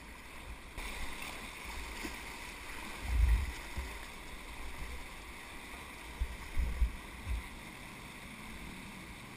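Whitewater rushing steadily around a kayak running a rapid, with paddle strokes splashing. Several dull low thumps on the microphone come about three seconds in and again a few times near seven seconds.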